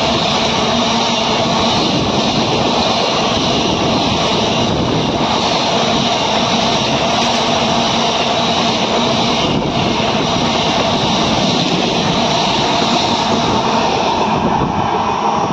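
Container wagons of a freight train rolling past at about 65 km/h very close by: a loud, steady rumble and rattle of steel wheels on the rails. It thins slightly near the end as the brake van at the tail passes.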